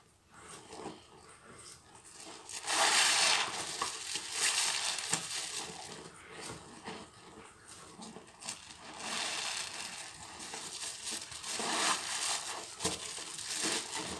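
Hands squeezing a soap-soaked sponge in thick suds: wet squelching with a fizzing crackle of foam, coming in swells, loudest about three seconds in and again in the last few seconds.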